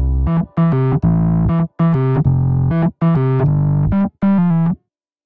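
Background music: an electronic keyboard tune played in short chords with brief gaps, cutting off suddenly near the end.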